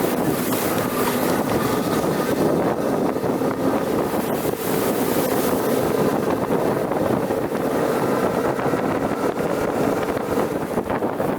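GAZ-66 truck's V8 petrol engine running steadily under way, with wind buffeting the microphone.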